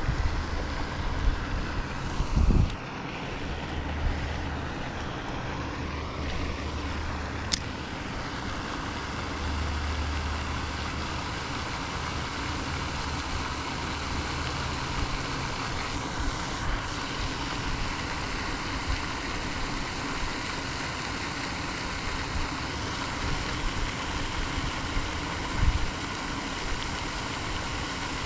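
Steady outdoor background noise, with low rumbles of wind on the microphone now and then and a few short knocks from handling the spinning rod and reel.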